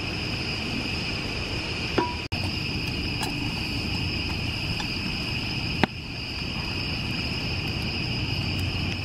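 Steady night chorus of crickets, a continuous high chirring, with a few brief clicks scattered through it.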